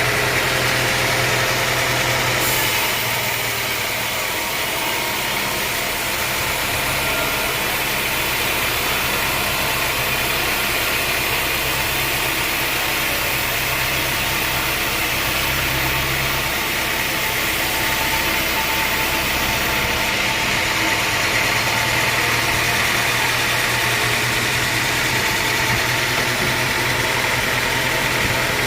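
Engine-driven homemade sawmill running steadily: a low engine hum under a broad hiss, shifting slightly about two and a half seconds in and again about twenty seconds in.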